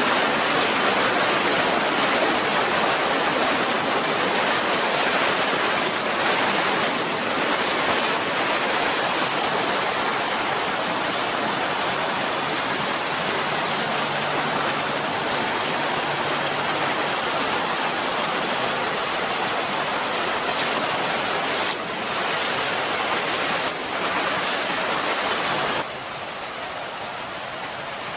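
Small river rushing over rocks, a steady wash of running water. It drops suddenly to a softer rush near the end.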